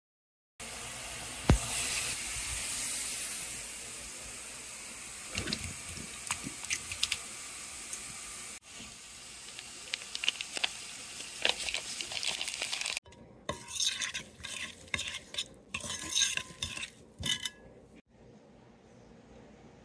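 Pot roast simmering in its juices in an enamel roasting pan: a steady sizzling hiss with one sharp knock near the start. After a cut comes a spoon stirring powdered mix into diced fruit in a bowl, in quick, irregular scraping strokes.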